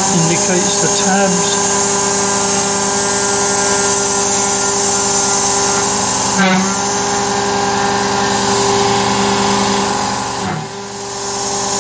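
Carvera Air desktop CNC mill's spindle running and cutting, a steady whine of several tones over the hiss of the air assist. It dips briefly about ten and a half seconds in.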